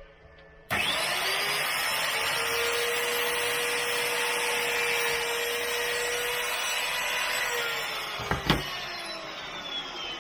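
Power drill boring a hole through hardwood flooring. The motor starts suddenly, runs steadily at full speed for about seven seconds, then winds down, with a knock just after.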